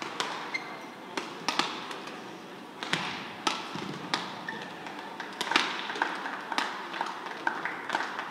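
A badminton rally: rackets striking the shuttlecock in a string of sharp cracks, with brief shoe squeaks on the court floor.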